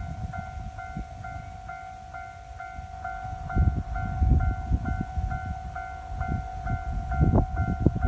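Japanese level-crossing warning bell ringing: an electronic kan-kan tone repeating about twice a second over a steady ring, sounding while the barriers are down for an approaching train. Bursts of low rumble come and go underneath, loudest a few seconds in.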